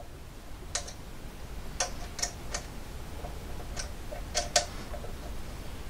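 A handful of small, sharp clicks and ticks at irregular intervals as hands handle and fit the heated bed's cable on a Prusa MK3 3D printer.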